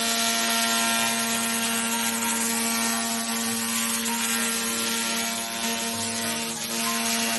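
Handheld fiber laser cleaning machine running in cleaning mode. A steady hiss sits over a constant machine hum.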